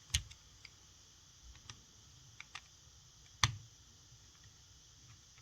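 Small sharp clicks and ticks of a precision Phillips screwdriver working a tiny screw out of an opened smartwatch, with two louder clicks, one just after the start and one about three and a half seconds in.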